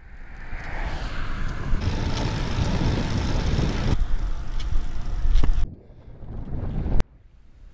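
Wind rushing over the microphone of a bike-mounted camera while riding, with rumbling road noise. It builds over the first two seconds, cuts off suddenly about two thirds of the way through, and a sharp click comes near the end.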